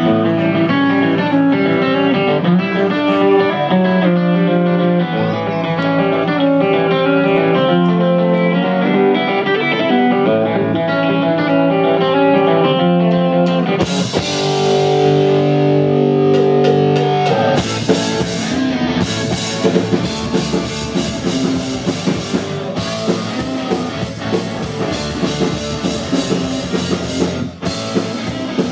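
Live rock band playing the opening of a song: an electric guitar picks a riff alone, then about halfway through a cymbal crash and a held chord, and the drums and the rest of the band come in together.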